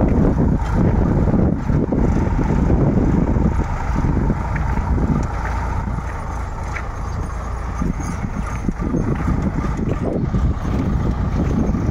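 Sonalika tractor's diesel engine running steadily under load as it pulls a tine cultivator through the soil, a little quieter in the middle.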